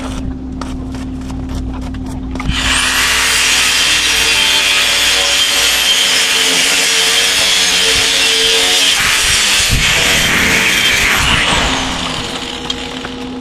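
Electric metal-cutting saw spinning up with a rising whine about two and a half seconds in, cutting through a piece of metal for about nine seconds, then spinning down with a falling whine near the end.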